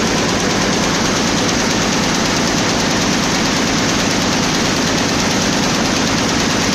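Schiffli embroidery machines running: a loud, steady, dense mechanical clatter of many rapid strokes that never lets up.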